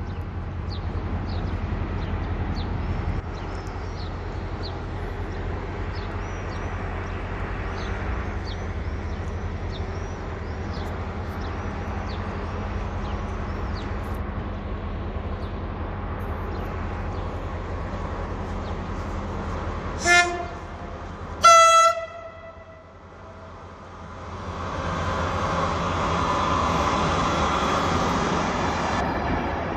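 Passenger train arriving behind an electric locomotive: a steady low rumble, then two short horn blasts about a second and a half apart. After the blasts comes the swelling rumble of the train rolling in.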